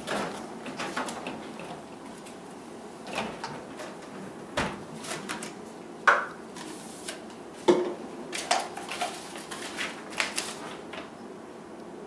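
A small refrigerator door opening and shutting, then a plastic tube-shaped container being handled and opened, with paper pulled out: a string of separate clicks and knocks.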